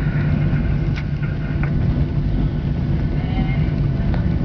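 Steady low rumble of a Boeing 737-800's CFM56 jet engines and airflow heard inside the passenger cabin, with a few faint ticks.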